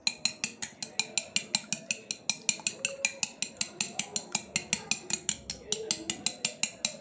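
A metal spoon beating raw eggs in a bowl, clinking against the side of the bowl in a steady rhythm of about six strokes a second.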